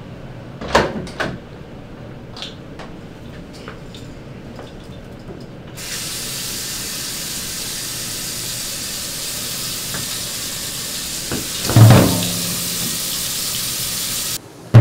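Water starts running suddenly about six seconds in and keeps up a steady hiss. Before it come a couple of sharp knocks about a second in, and a loud heavy thud sounds about twelve seconds in.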